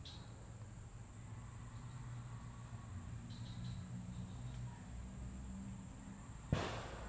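Steady high-pitched chorus of insects over a low rumble, with one sharp knock about six and a half seconds in.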